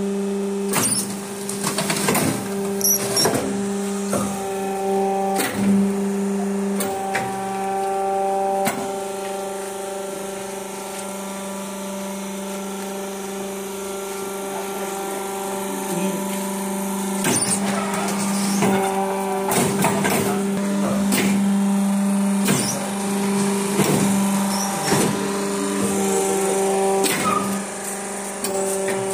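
Hydraulic interlocking-brick making machine running: its power-pack motor and pump hum steadily. Frequent metal clanks and knocks sound over the hum, with fewer of them in the middle.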